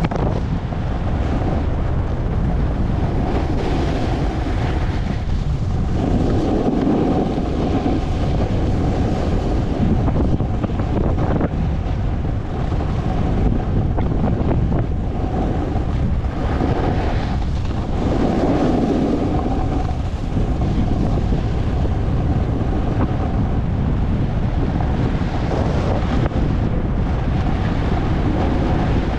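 Wind buffeting the camera microphone of a skier moving downhill, with the rushing hiss of skis sliding over groomed snow. The rush swells louder twice, about six and eighteen seconds in.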